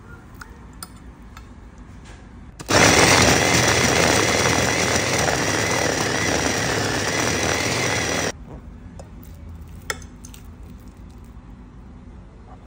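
Small electric food chopper running at full speed, mincing meat filling. The motor starts abruptly about three seconds in, runs steadily with a faint whine for about five and a half seconds, then cuts off suddenly.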